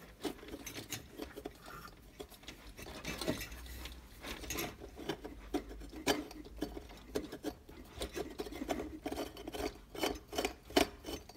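A floor lamp's metal pipe being screwed tight by hand into its threaded fitting: irregular scraping and rubbing with many light metal clicks.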